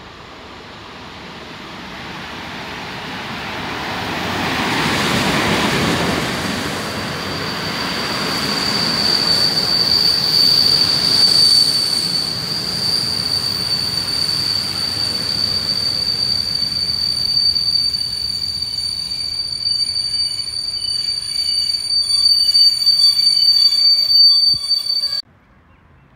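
Electric locomotive hauling a PKP Intercity passenger train past on the platform track: the rushing rail noise builds to a peak about five seconds in as the locomotive goes by, then the coaches run past with a steady high-pitched squeal from their running gear. The sound cuts off suddenly near the end.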